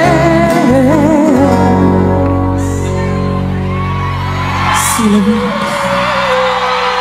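Live acoustic ballad ending: a woman sings with vibrato over strummed acoustic guitars, then from about five seconds in holds one long final note. Audience whoops rise from the hall.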